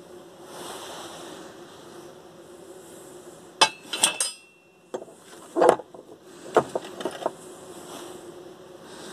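Steel wheel-hub parts clinking and knocking against a metal workbench as they are handled and set down: a quick cluster of sharp clanks between three and a half and four and a half seconds in, one with a brief metallic ring, then a few more single knocks. A steady hum runs underneath.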